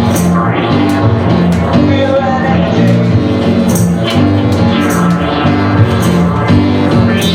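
Live band music with a walking bass line and regular cymbal hits.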